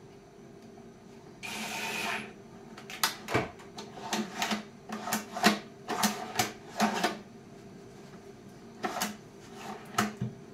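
A cordless drill runs briefly, under a second, about a second and a half in, driving a screw into a drawer slide. This is followed by a quick run of sharp metal clicks and clacks as the steel drawer slide is handled and worked, with a few more clicks near the end.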